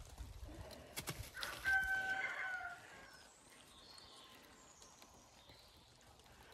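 A rooster crowing once: a single held call that starts about a second and a half in and lasts about a second, just after a sharp click.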